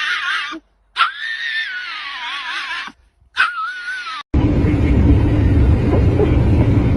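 A dog howling in long, wavering cries that slide up and down in pitch, with short breaks between them. About four seconds in, they cut off abruptly and are replaced by a loud, steady rumbling noise.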